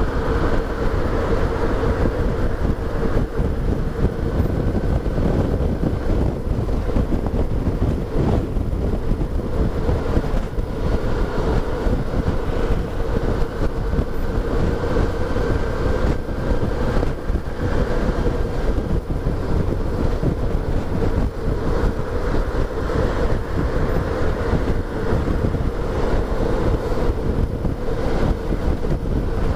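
Motorcycle engine running at a steady cruising speed, its pitch holding level, under heavy wind noise on the microphone from a strong wind.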